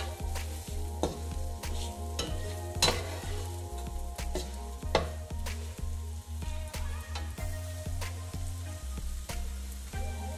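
Slotted spatula scraping and knocking against a nonstick frying pan as raw banana slices are stir-fried in oil over a low flame, with a steady sizzle and irregular sharp clicks about once or twice a second.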